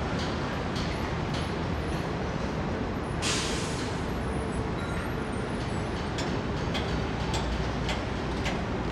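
Steady city street traffic rumble, with a short burst of hiss about three seconds in and a faint regular tick about twice a second.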